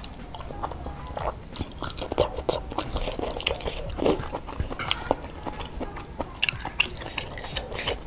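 Close-miked chewing of a mouthful of boiled egg noodles in soup, with many short, wet mouth clicks and smacks.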